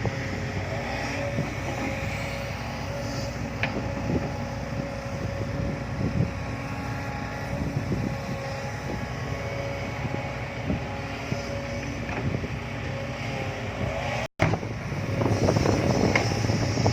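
Heavy diesel machinery running steadily, with a few light knocks and a brief cut-out about fourteen seconds in.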